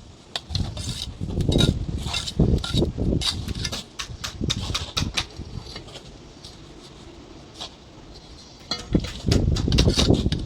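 Block-laying work: a steel mason's trowel clinking and scraping against concrete blocks and mortar, with low knocks as blocks are set. The clatter goes quiet for a few seconds past the middle, then picks up densely near the end.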